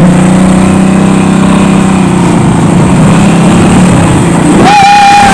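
Motorcycle engine running at a steady pitch while riding, heard from the pillion seat. Near the end a higher held tone joins it.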